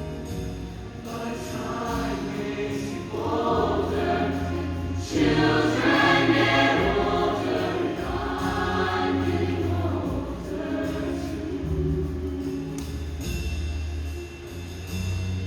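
Show choir singing sustained chords with no clear words, over steady low instrumental notes. It swells noticeably louder about five seconds in.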